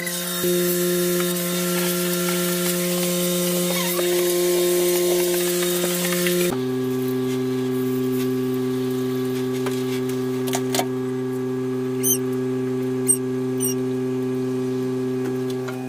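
Electric pet-grooming machine humming steadily, switching abruptly to a lower-pitched hum about six and a half seconds in, with a few light clicks near the end.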